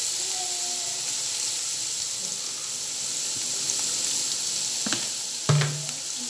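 Diced beef, garlic and ginger sizzling steadily in hot oil in a frying pan. A couple of light clicks and then a single knock come about five seconds in.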